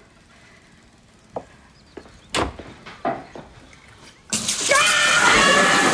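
A few short knocks and clinks of a glass being handled at a kitchen sink, then about four seconds in the kitchen tap bursts into a loud, steady gushing spray of water. A woman's voice cries out over the spray.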